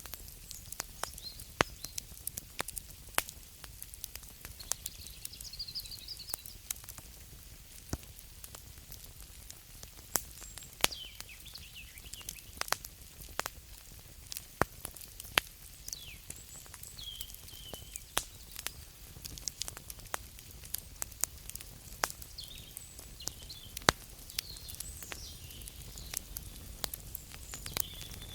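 Wood fire crackling, with irregular sharp snaps and pops, a few of them much louder, over a steady low hiss. Short, high, wavering chirps are heard now and then behind the fire.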